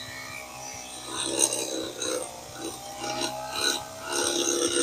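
Wild Badger walk-behind power edger running, its engine holding a steady note while the blade cuts the grass edge along a driveway, rasping against dirt and concrete in three rougher surges.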